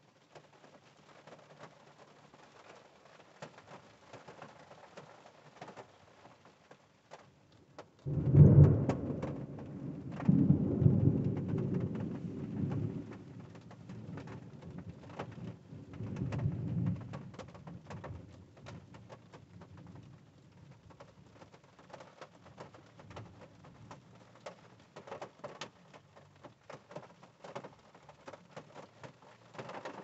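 Rain pattering on a car's roof and windshield, heard from inside the car. A loud clap of thunder breaks about eight seconds in and rolls on for several seconds, with a second rumble of thunder a few seconds later.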